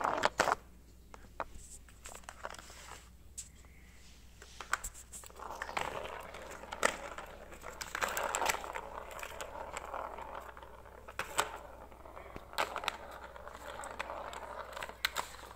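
A cat playing with a plastic circular ball-track toy: irregular clicks and knocks on the plastic, with crinkly rustling in between. The loudest knocks come right at the start and about seven seconds in.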